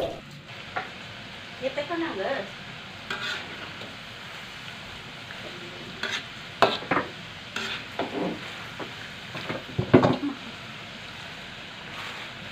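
Diced potatoes deep-frying in oil in a wok, a steady sizzle, with a spatula stirring and knocking against the wok several times. A single sharp knock comes right at the start.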